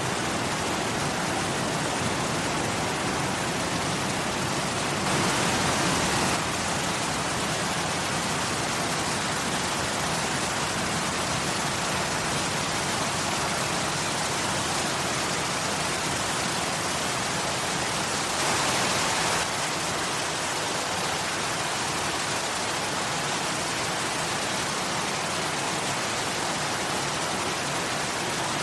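Waterfall: a steady rush of falling water. It swells briefly about five seconds in and again near two-thirds of the way through.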